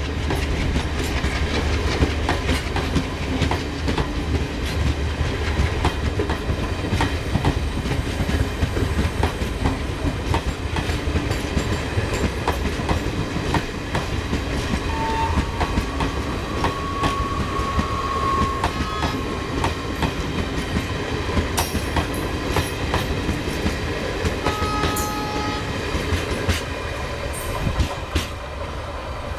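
Passenger coaches of a diesel-hauled train rolling past as it pulls away, the wheels clattering steadily over the rail joints. The sound eases slightly near the end as the last coach goes by.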